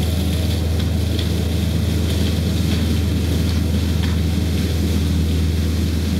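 Takeuchi TL130 compact track loader running steadily with its brush mulcher head spinning: a constant low machine hum with a noisy hiss over it and scattered light ticks.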